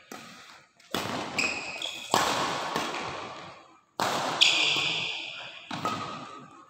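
Badminton rally in a large echoing hall: several sharp racket strikes on the shuttlecock, each ringing out for a second or more, with high squeaks of shoes on the court floor in between.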